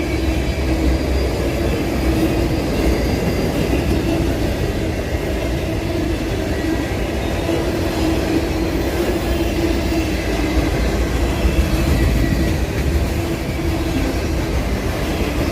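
Freight train cars rolling past on the rails, a steady rumble and rattle of steel wheels on track that holds level throughout.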